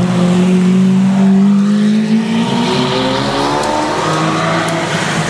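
Lamborghini Murciélago LP670-4 SuperVeloce's V12, fitted with a Reiter exhaust, accelerating hard: the engine note climbs, drops about two seconds in and climbs again, then drops and rises once more near the end.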